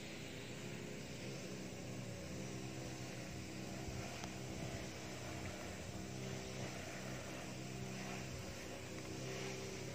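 A motor running steadily: a low, even hum over a faint hiss.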